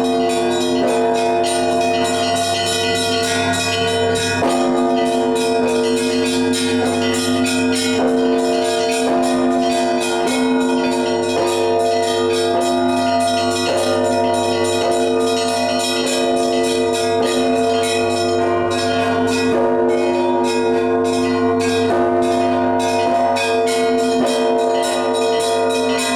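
Russian Orthodox church bells rung together in a festive peal (trezvon): small bells struck in a rapid, continuous pattern over the sustained hum of larger bells, whose tones shift every few seconds as different bells are struck.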